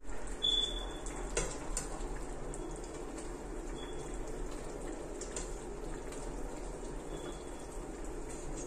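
Pot of chicken soup simmering in a stainless steel pot with a steady bubbling, and a metal ladle clinking sharply a few times against the pot and bowl as broth is scooped out.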